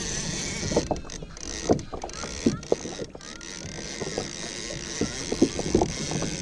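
Water slapping irregularly against the hull of a Hobie Compass kayak at sea, with scattered knocks and clicks from the boat's gear over a steady hiss of wind and water.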